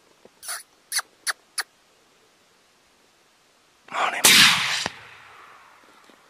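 Four short, high squeaks from a hunter's predator call in the first two seconds. About four seconds in, a loud rifle shot at a coyote rings out and echoes away over a second or so.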